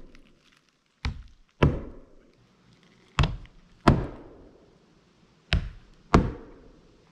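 Hammer driving roofing nails through asphalt ridge cap shingles: six blows in three pairs, each pair a lighter tap to start the nail and then a harder strike about half a second later.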